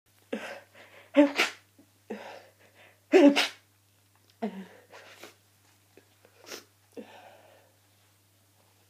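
A person sneezing in a fit, brought on by hayfever and a cold. Two loud sneezes come about one and three seconds in, each after a quieter lead-in, followed by several smaller sneezy breaths.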